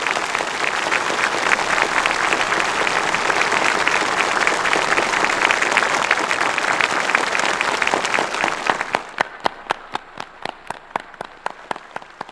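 Massed applause from a large formation of soldiers clapping in unison: a dense, steady roar of clapping that thins out about nine seconds in to scattered individual claps and fades away.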